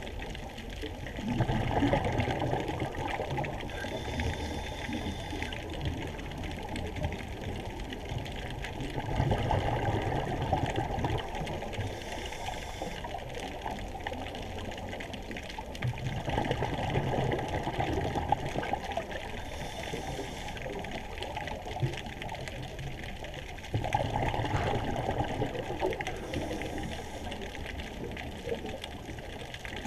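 Underwater water noise heard through a camera housing: a steady muffled wash, swelling into a louder gurgle about every seven to eight seconds.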